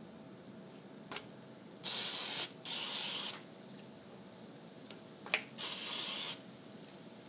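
Aerosol cooking-oil spray can hissing in three short bursts onto corn tortillas, two close together about two seconds in and one near the end. A light tick comes just before the first and the last burst.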